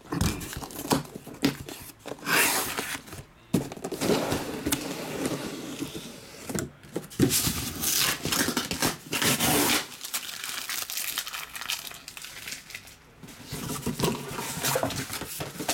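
Taped cardboard case of trading-card boxes being torn open and the cellophane-wrapped boxes handled and stacked: tape and cardboard tearing and scraping, and plastic wrap crinkling, in irregular rustles with a quieter stretch about ten seconds in.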